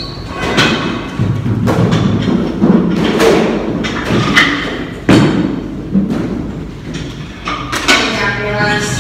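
Loud pop dance music playing, with sung vocals and sharp drum hits.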